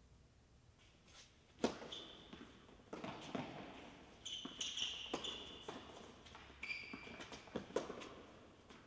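Tennis rally on an indoor hard court: several sharp pops of racket strings hitting the ball and the ball bouncing, the loudest about two seconds in, about five seconds in and near the end, echoing in the hall. Short high squeaks of tennis shoes sliding on the court come between the shots.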